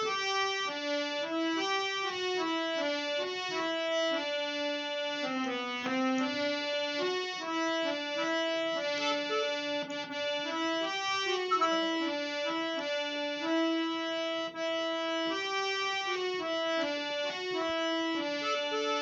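Instrumental interlude of a Hindi ghazal-style song: a reedy keyboard melody in sustained, stepping notes over a lower accompanying line.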